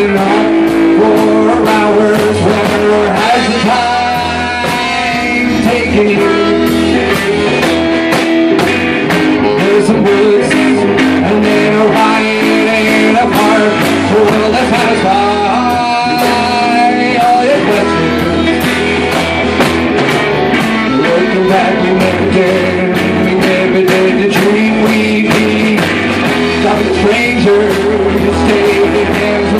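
A live rock band playing loudly: electric guitar, drum kit and trumpet, with the drums hitting a steady beat and a few long held notes over it.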